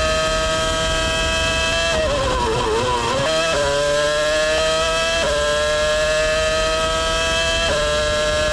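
High-revving racing engine at speed. Its note falls and wavers as it slows into a corner about two seconds in, then climbs again under acceleration, dropping sharply twice at upshifts.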